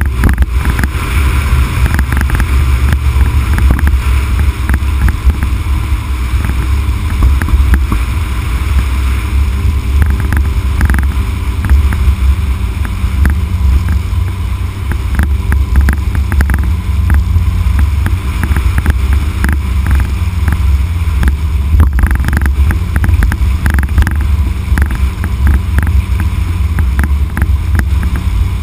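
Heavy wind rumble on the microphone and tyre noise from a Honda Civic Type R (EK9) driving down a concrete mountain road, steady and loud, with short bumps scattered through it.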